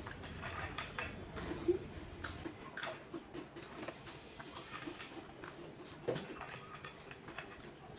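Crisps and crackers being bitten and chewed straight off the plates without hands: a stream of small, irregular crunches.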